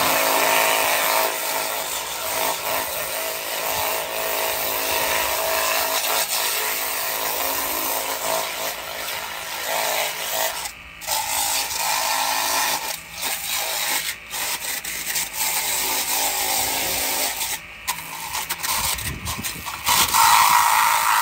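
High-pressure washer running, its thin water jet hissing hard against a metal beer can, with a steady motor hum underneath and a few brief drops where the spray falls away.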